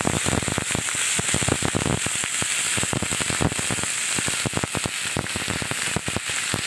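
Raw pork pieces frying in hot rendered pork fat in a wok: a loud, steady sizzle with many quick, sharp pops and crackles of spattering fat.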